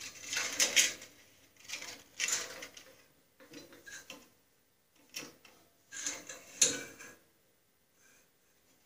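Bandsaw blade being worked onto the wheels by hand: scraping, rustling and metallic clicks in several short bursts that die away about seven seconds in.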